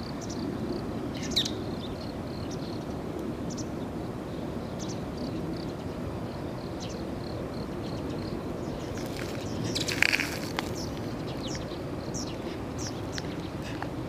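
Outdoor ambience: a steady low rumble with many small high chirps scattered through it, and a brief, louder sharp sound about ten seconds in.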